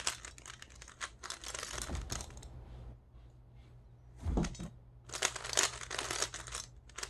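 Plastic speed cube being turned in several quick bursts of moves with short pauses, the layers making a scratchy plastic scraping.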